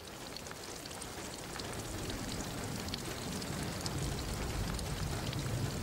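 Steady rain falling, with scattered small drop ticks. A low rumble swells gently underneath about two seconds in.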